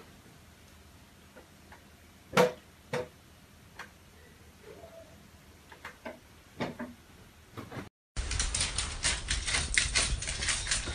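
Quiet room with a few scattered soft knocks and clicks and one sharper thump about two and a half seconds in. About eight seconds in, the sound cuts to a louder, dense clatter of rapid clicks.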